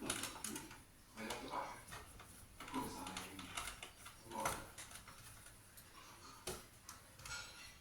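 Screws being tightened by hand with a screwdriver in a crosswise order: a scatter of small clicks and short metal scrapes, a few every couple of seconds.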